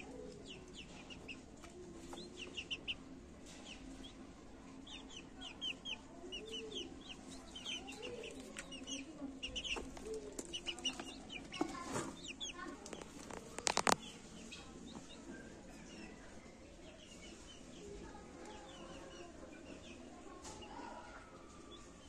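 Mixed poultry flock of hens, guineafowl and quail calling: hens clucking softly among rapid runs of short, high chirping calls. A brief burst of sharp clicks comes a little past halfway.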